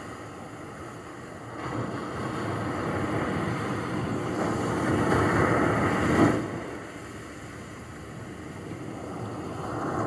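Small waves washing onto a pebble shore: a rushing hiss that swells from about a second and a half in, cuts off abruptly about six seconds in, then begins to build again near the end.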